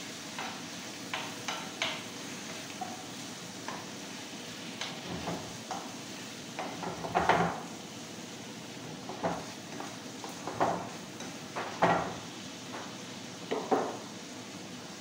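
A spatula stirring and scraping food in a frying pan on a gas stove: irregular scrapes and knocks against the pan, the loudest about seven and twelve seconds in, over a steady sizzle of frying.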